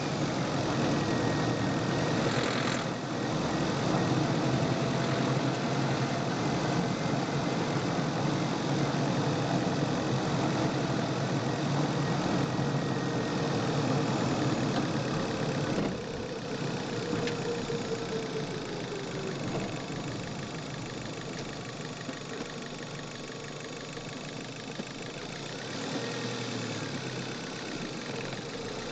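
Chevrolet car engine heard from the engine bay, running under acceleration with a knocking, a fuel knock (detonation) that comes when the engine is accelerated. About 16 s in the engine noise drops suddenly as the throttle comes off and the revs fall away; near the end it picks up again.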